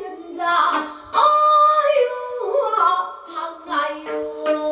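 Korean traditional singing with plucked gayageum accompaniment (gayageum byeongchang): a voice sliding between held, ornamented notes over plucked strings.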